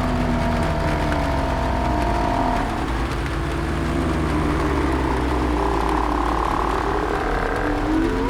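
Layered zombie horror ambience: drawn-out, slightly wavering zombie moans over a steady low rumble with a fast rattling pulse.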